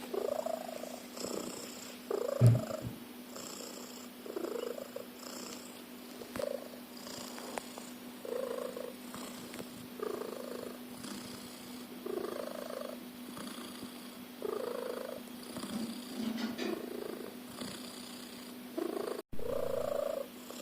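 A sleeping cat snoring loudly, one snore about every two seconds. There is a single thump about two seconds in.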